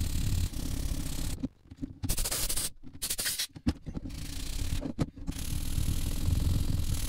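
Sanding sponge block rubbed back and forth by hand over hardened polymer repair compound on a climate-control bezel, a scratchy rasp as the filler is sanded down flush with the bezel. The rasp breaks off briefly a few times in the middle between passes.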